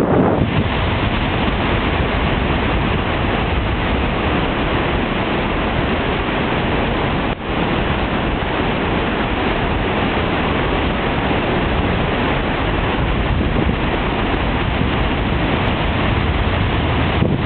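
Steady wind rushing over the microphone mixed with surf breaking on the beach, dipping briefly about seven seconds in.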